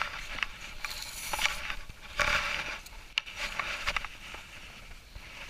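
Jacket fabric rustling and scuffing close to the microphone as the wearer handles a fish. The noise comes in uneven bursts, with a couple of sharp clicks.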